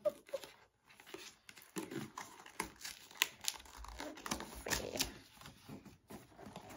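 Cardboard packaging box being torn open by hand: an irregular run of short rips and crackles, because its glued zip-strip would not unzip.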